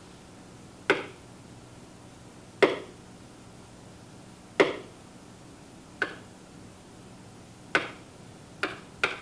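Seven sharp taps of a hand on an interactive whiteboard, pressing its slide-navigation buttons, spaced irregularly a second or two apart over a faint room hum.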